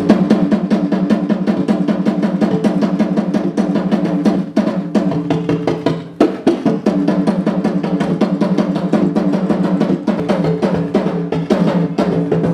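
Apinti talking drum of the Suriname Maroons played in rapid, continuous hand strokes, sounding a greeting in drum language.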